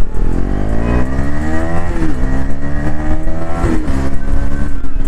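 KTM Duke 250's single-cylinder engine accelerating hard, its pitch climbing and then dropping at an upshift about two seconds in. It climbs again to a second upshift just before four seconds in, then holds fairly steady.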